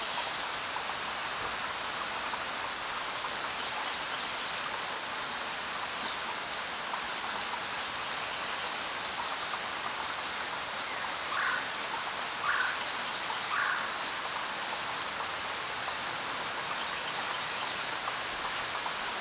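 Steady rain falling, an even hiss. A few brief animal calls cut through it: a high chirp at the start and another about six seconds in, then three short calls in quick succession about two thirds of the way through.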